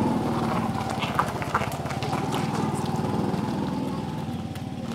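Motorcycle engine of a sidecar tricycle running with a fast, even pulse as the tricycle pulls away.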